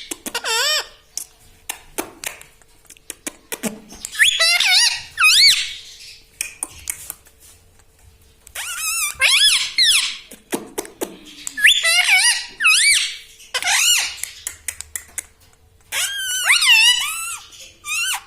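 Indian ringneck parrot giving loud, high-pitched warbling squawks in about five bursts a few seconds apart, with short sharp clicks in between.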